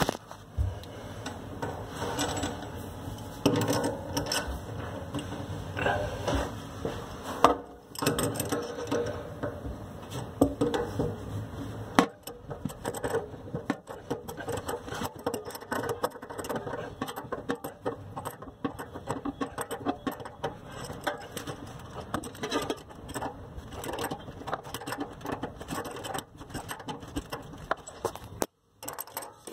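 Metal nuts and fittings being handled, threaded and tightened onto the mounting studs of a kitchen mixer tap from beneath the counter: irregular small clicks, scrapes and rattles, with a couple of louder knocks.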